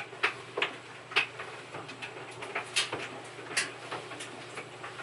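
Irregular light taps and clicks, two or three a second, over a steady low hum.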